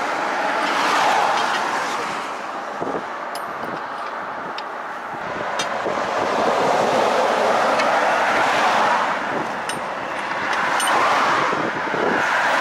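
Road traffic going past: the noise of vehicles swells and fades several times, with a few faint clicks.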